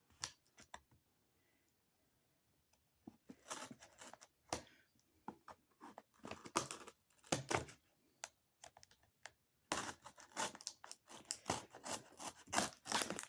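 A cardboard shipping box being opened by hand, with packing tape tearing and pulling off in short scratchy bursts. The first three seconds are nearly quiet, and the bursts come in three clusters after that.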